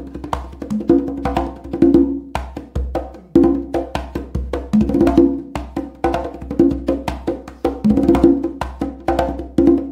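Instrumental background music with a quick, busy percussion beat of sharp clicks over bass and short melodic notes.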